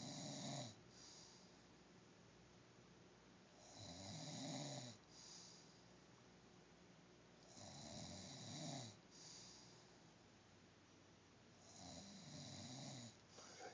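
A sleeping man snoring, four snores about four seconds apart, each a low rasp lasting about a second followed by a short, softer breath out.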